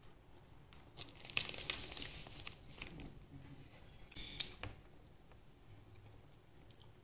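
Crinkling and rustling of a plastic or paper wrapper being handled for about two seconds, followed by a shorter rustle and a light click about four and a half seconds in.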